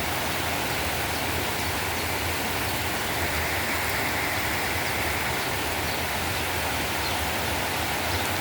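Heavy rain pouring steadily, an even hiss of water.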